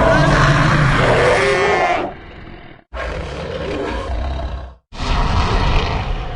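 Custom monster roar for Titanosaurus, layered from animal and beast roar and growl effects: one loud pitched roar lasting about two seconds, then two deep, rough growls of about two seconds each, each call cut off abruptly into silence.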